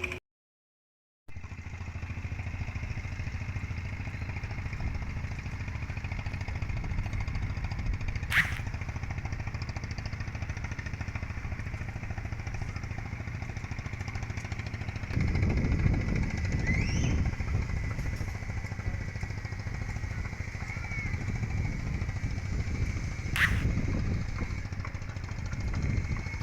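An engine running steadily, louder for a while in the middle and again near the end, with two sharp clicks. A moment of silence just after the start breaks the sound.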